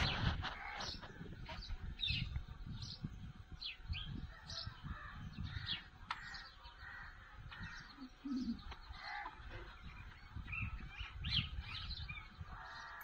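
Birds chirping: short, high, falling calls repeated every second or so, over a low rumbling background noise. A brief lower call sounds once, about eight seconds in.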